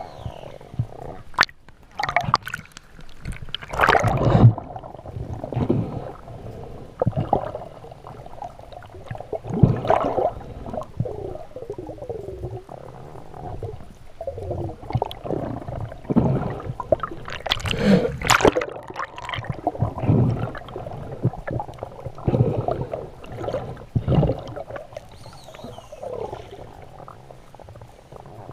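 Water gurgling and sloshing during a spearfishing dive, in irregular surges with several louder rushes.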